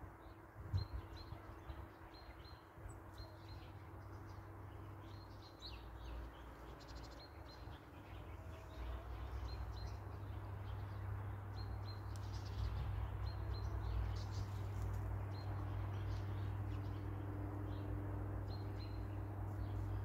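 Small songbirds chirping in short, high, repeated double notes. A low steady hum grows louder about halfway through and becomes the loudest sound.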